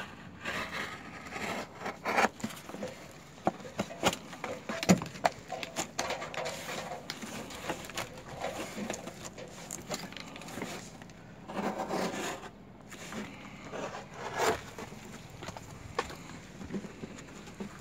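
Stiff black roofing paper being folded by hand and pressed against a stucco wall: irregular scraping, crinkling and light knocks, with a few longer rustles as the sheet is pushed and creased.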